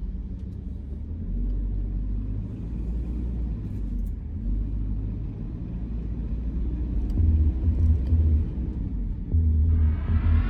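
Deep low rumble that fades in and holds steady. Near the end a rising electronic sweep swells up as the lead-in to music.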